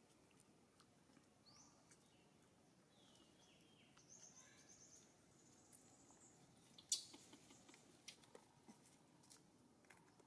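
Quiet outdoor ambience with faint high chirping calls and light rustling. A sharp click comes about seven seconds in, then a few softer clicks.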